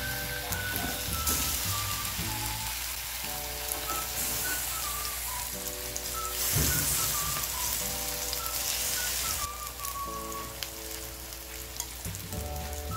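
Tomato slices sizzling in hot olive oil in a nonstick frying pan as they are laid in one after another. Soft background music with held chords and a simple melody plays underneath.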